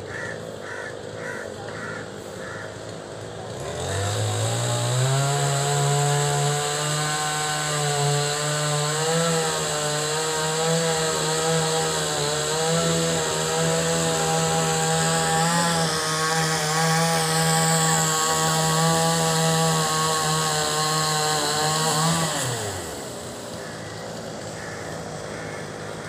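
An engine revs up about four seconds in, runs at a steady high speed with a slight waver in pitch, then winds down near the end.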